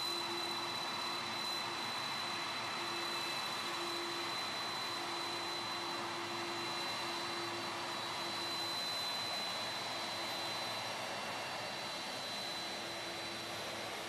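Boeing VC-25A (Air Force One, a four-engine 747) taxiing slowly with its jet engines running: a steady rushing noise with a thin, high whine held throughout.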